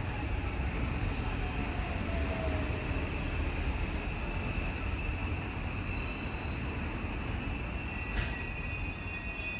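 JR-West Series 323 commuter train running into the station and slowing. It is a steady rumble until, about eight seconds in, it draws close and gets louder, with a high-pitched squeal as it brakes.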